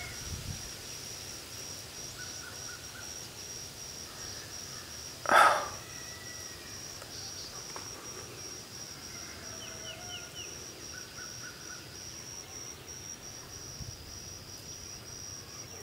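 Outdoor summer ambience: a steady, evenly pulsing high-pitched insect trill with a few faint bird chirps. One short, loud, harsh sound stands out about five seconds in.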